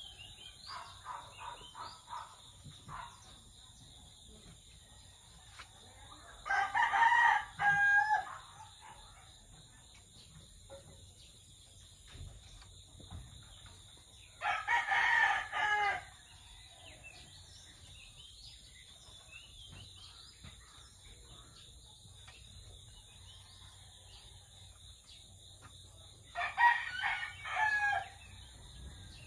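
A rooster crowing three times, each crow lasting about two seconds, with a steady high-pitched hum underneath.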